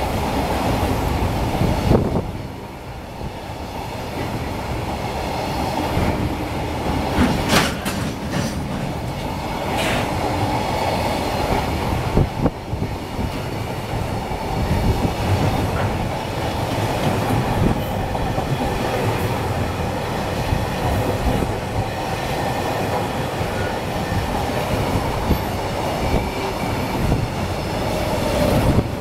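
Container wagons of a freight train passing close at speed: a steady rumble of wheels on rails, with a few sharp knocks from the wheels over the track.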